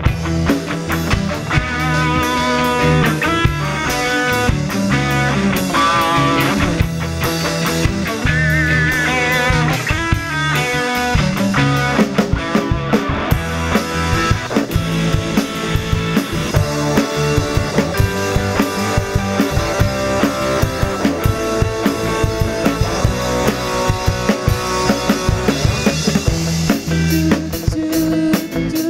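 Rock band playing live: electric guitars over bass and a drum kit.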